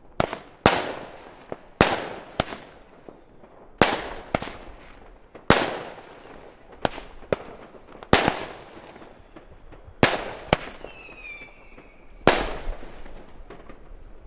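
Hypercube consumer firework battery firing its shots: about fourteen sharp bangs, half a second to a second and a half apart, each trailing off. A thin falling whistle comes just before the last and loudest bang near the end.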